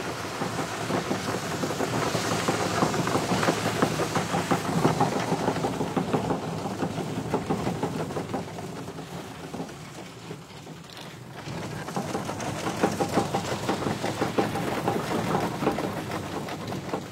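Cleaned seed streaming out of a fanning mill's sheet-metal chute into a plastic bucket: a dense, rain-like patter of countless small impacts. It eases off for a moment about ten seconds in, then picks up again.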